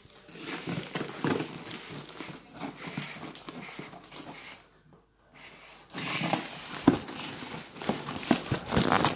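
Packaging being handled and crinkled by hand as a box is worked open, in irregular rustles and small knocks. There is a short break of near silence about halfway through.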